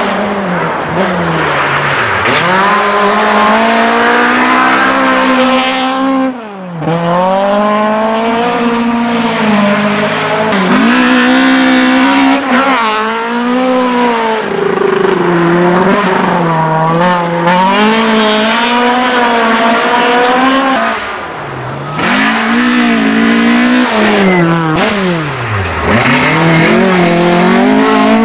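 Toyota Corolla GT rally car engine running at high revs through the gears. Its note climbs as it accelerates, then falls sharply several times on lifts and gear changes across a series of fast passes.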